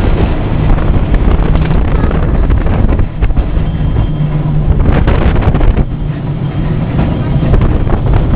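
Lisbon tram no. 730 running along its track, heard from the cab: a continuous rumble of motors and wheels on the rails, with a low hum that comes and goes and light clicks, and wind buffeting the microphone.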